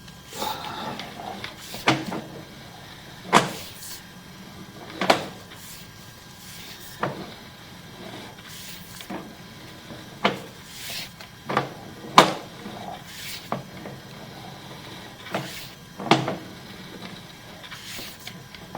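A series of sharp knocks and clacks, about one every second or two at an uneven pace, over a faint steady hum.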